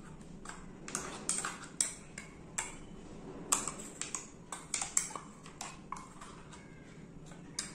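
Spoon clinking and scraping against a stainless-steel mixer-grinder jar as thick ground paste is scraped out into a steel bowl, with irregular sharp metal taps throughout.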